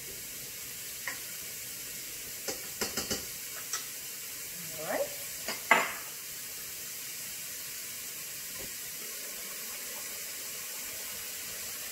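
Chopped onions sizzling steadily in a hot, oil-free pan while a utensil stirs them, knocking and scraping against the pan several times in the first half.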